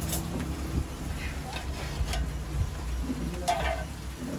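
Coconut roti dough slapped and pressed by hand onto a hot stone griddle: a few short slaps and scrapes over a steady low hum.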